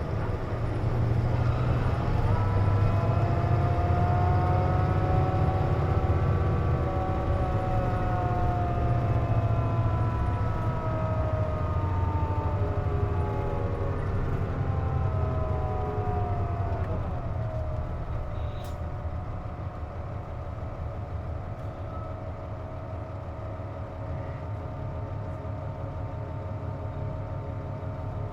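Cabin sound of a Hino KC-JP250NTN city bus moving off and running: low engine rumble with a whining tone that rises over the first few seconds, holds, then drops away about two-thirds of the way through, settling into a steadier hum. The air conditioning is running, and with it on this bus makes an odd noise.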